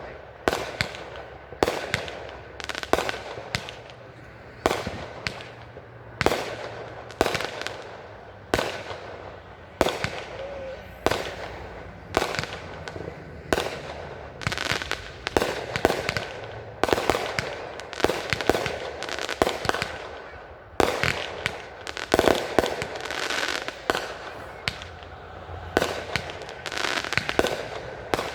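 Aerial firework shells bursting in a steady barrage, sharp booms coming about one a second and sometimes closer together, each fading out in a short echoing tail.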